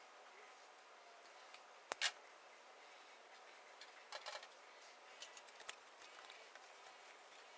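Faint hiss with a few scattered sharp clicks and taps, the loudest about two seconds in and a small cluster around four seconds.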